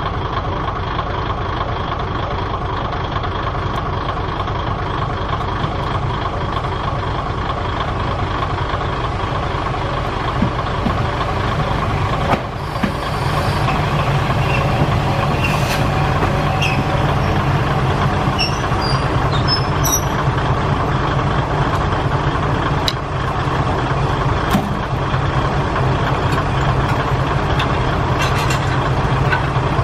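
Diesel railcar engines idling steadily. The idling grows louder after a break about twelve seconds in, and a few short, sharp sounds come in the second half while the cars are being coupled.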